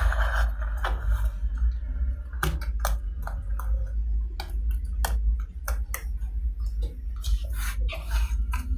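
Small magnetic balls clicking and ticking irregularly as a sheet of them is handled, pressed flat and pinched into place by hand, over a steady low hum.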